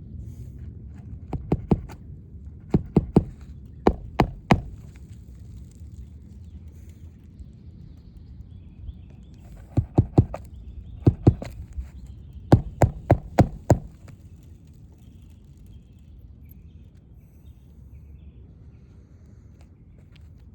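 A hammer driving roofing nails into a replacement asphalt shingle, in short runs of two to five quick blows with pauses between, over a low steady rumble; the hammering stops about two-thirds of the way through.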